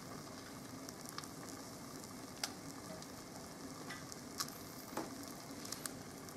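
Butter sizzling in a frying pan under a slice of egg-soaked bread frying as French toast: a steady hiss with occasional sharp pops and crackles.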